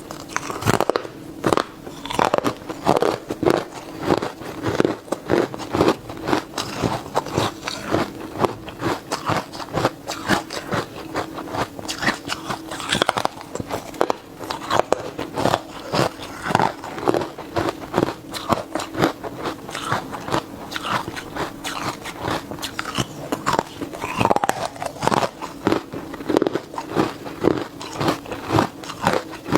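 Hard carbonated ice being bitten and chewed close to the microphone: a dense, irregular run of sharp crunches and crackles that goes on without a break.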